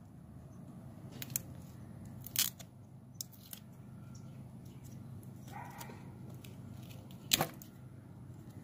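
Close handling of a braided nylon fuel hose and tape: a few sharp crackles and clicks, the loudest about two and a half seconds in and again near the end, over a steady low hum.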